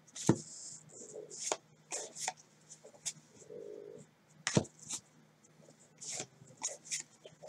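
Stack of baseball cards handled by hands in disposable rubber gloves, cards slid and flicked one off the front of the stack to the back: a string of short snaps, rubs and papery swishes. Two sharper snaps stand out, about a third of a second in and a little past halfway.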